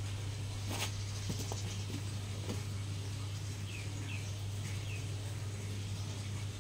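A steady low hum, with a soft knock about a second in and a few faint high bird-like chirps about four seconds in.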